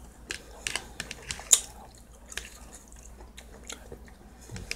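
A person chewing food, with scattered sharp clicks from a fork picking at food in a plastic tray. The loudest click comes about one and a half seconds in.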